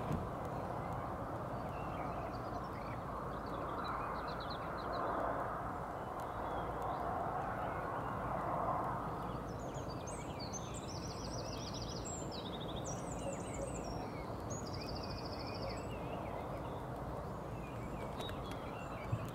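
Countryside ambience: a steady low background rumble with small songbirds chirping over it. A burst of high, rapid trilled song comes about ten seconds in and lasts a few seconds.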